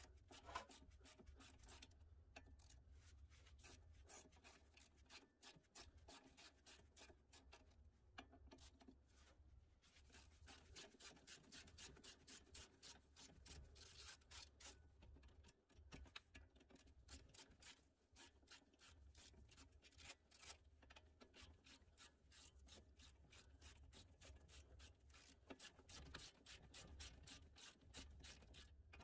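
Faint, rapid clicking of a hand ratchet turning a 17 mm socket as the control arm's ball joint bolt and nuts are loosened.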